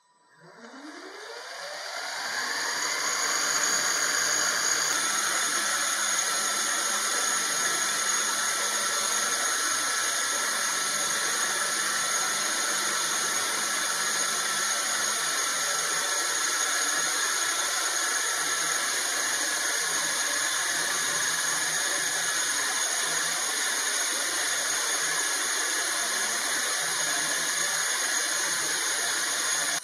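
CNC milling machine spindle spinning up with a rising whine over the first few seconds, then an end mill cutting a profile in steel plate: a steady high-pitched whine over a hiss of cutting noise.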